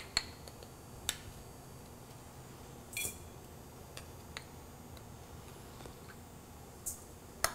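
Metal measuring cup scooping and tapping in a small bowl of brown sugar: a handful of light scattered clicks, with one ringing clink about three seconds in.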